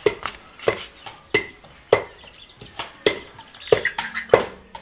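Cleaver chopping hard, unstewed dried buffalo hide on a wooden chopping block: steady strikes about every two-thirds of a second, about eight in all.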